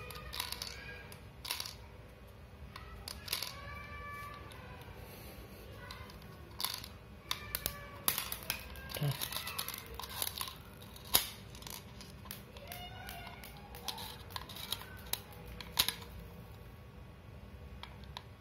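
Plastic 6 mm BBs being pressed one by one into a toy Desert Eagle pistol's plastic magazine: a series of short, irregular sharp clicks and plastic rattles, the loudest about eleven and sixteen seconds in.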